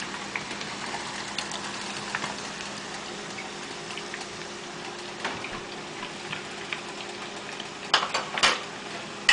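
Steady sizzling and bubbling from pots on the stove, with chicken frying in hot oil and broccoli in boiling water, and faint crackles throughout. A few sharp clinks, like metal on a pot, come about eight seconds in and again near the end.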